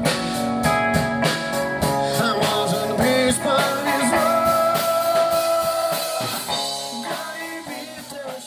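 Rock band music with electric guitar, drum kit and singing, with a long held note in the middle; it fades down near the end.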